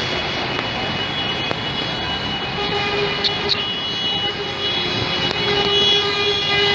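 Steady mechanical drone with a low hum that sets in about two and a half seconds in and holds to the end.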